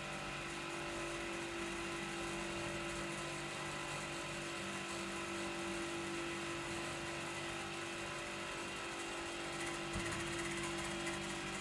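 Clarke Shhh low-noise air compressor running steadily: an even motor-and-pump hum with a strong steady tone and no change in speed. A small knock about ten seconds in.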